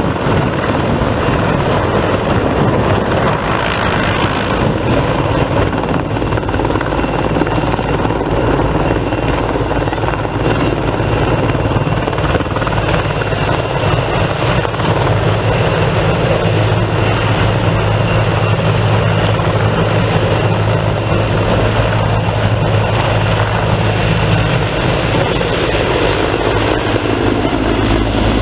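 Sikorsky CH-53 heavy transport helicopter flying a low display pass overhead: loud, steady rotor and twin turboshaft engine noise. A low drone grows stronger a little past the middle and eases again near the end.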